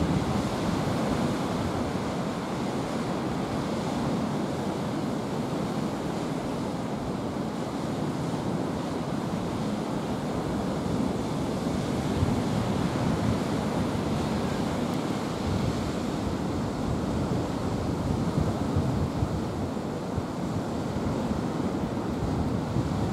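Steady wind rushing and buffeting against the microphone.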